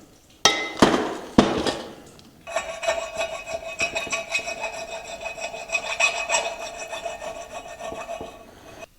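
Two knocks, then about six seconds of steady grinding with a whine running through it: metal being opened out on the sawmill's bushing brackets so the plastic bushings will fit.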